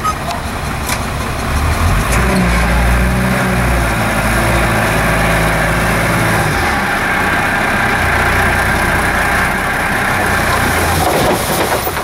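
Dump truck engine running under load while its hydraulic hoist raises the tipper bed; the engine note shifts about six and a half seconds in and eases off near the end as the load of soil starts to slide out.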